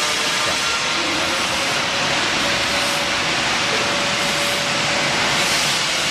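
Steel bar cutting machine running: a steady, even mechanical noise with a faint steady tone, no strokes or cuts.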